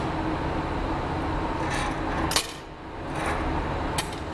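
Sharp metallic clinks of steel glassworking tools and the blowpipe against the metal bench and pipe rest: the loudest about two seconds in, two more near the end. Under them runs a steady low workshop roar.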